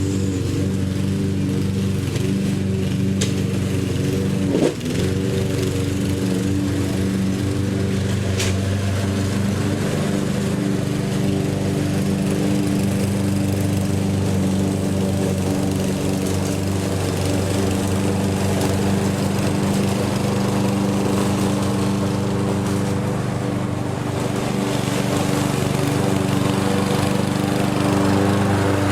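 Lawn mower engine running at a steady speed, with one brief knock about five seconds in.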